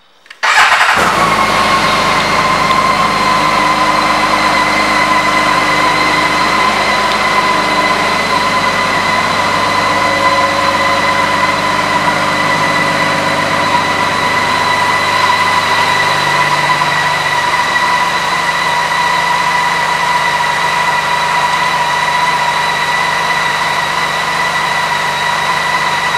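BMW K 1600 GT's inline six-cylinder engine starting about half a second in, then idling steadily, with a steady high whine over the engine note.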